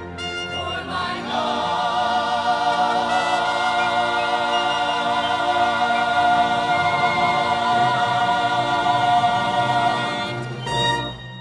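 Musical-theatre ensemble and orchestra holding the long final chord of a showtune, the massed voices sustaining one high note with vibrato. Near the end it closes with a short, punchy orchestral chord that dies away.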